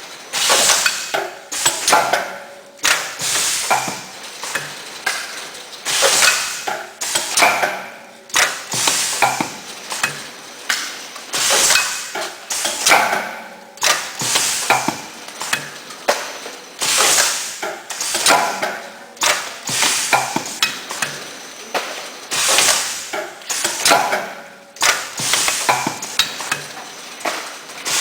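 Automatic tofu packaging machine running, its mechanisms clattering and clicking in a repeating cycle, with a louder burst every two to three seconds.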